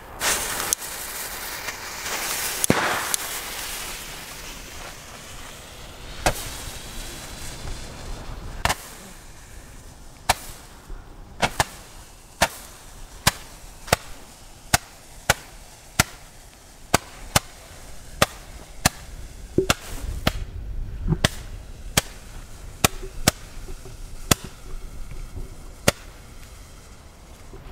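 Stick firework planted in the grass hissing as it catches, then letting off sharp cracks: a few spaced out at first, then a steady run of a little more than one crack a second.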